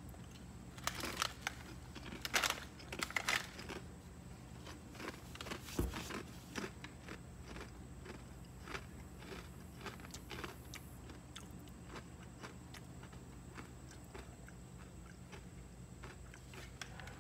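A person chewing crunchy cheddar crisps, a run of loud crisp crunches in the first few seconds, then softer, scattered crunching as the chewing goes on.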